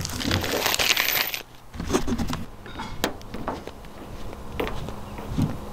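Rustling and rubbing from handling on the bus roof for about the first second and a half, then a few scattered light knocks and taps.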